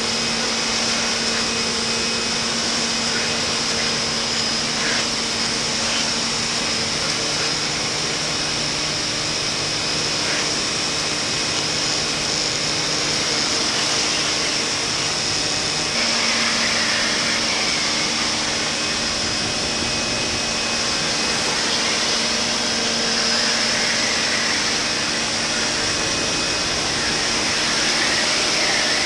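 Portland 1750 PSI corded electric pressure washer running and spraying: a steady motor-and-pump hum under the hiss of the water jet, the hum shifting slightly about halfway through.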